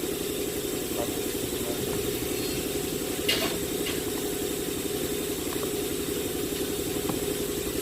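An engine idling steadily with a fast, even pulse, and a single sharp click about three seconds in.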